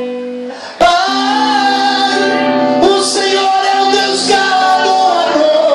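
A Portuguese-language worship song: a voice singing over sustained instrumental chords. The music comes in louder just under a second in.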